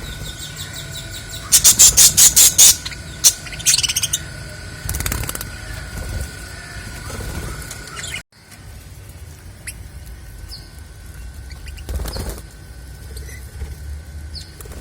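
Budgies flapping their wings in short bursts. The loudest is a run of about seven quick wingbeats a couple of seconds in, with smaller bursts after it and a few faint chirps later on.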